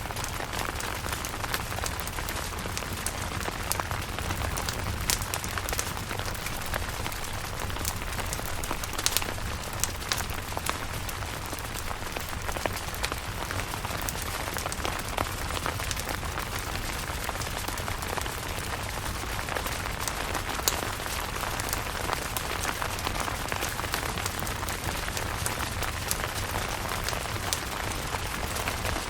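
Steady rain falling on a camping tent, with many separate drops ticking sharply on the surface over the constant patter.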